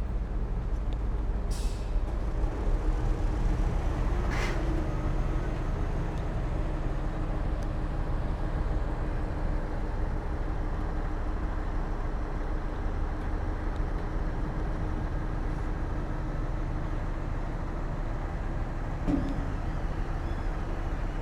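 Heavy earthmoving machine's diesel engine running steadily with a low rumble, with two short hisses a few seconds in.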